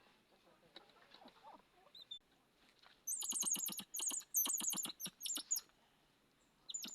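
Hutia squeaking: rapid runs of high, downward-sliding squeaks in several bursts from about three seconds in, with a short burst again at the very end.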